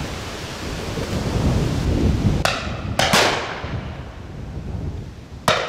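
Shotgun shots fired at driven gamebirds overhead: two shots about half a second apart, then a third near the end, each trailing off in a short echo. A low rumble of wind on the microphone comes before the shots.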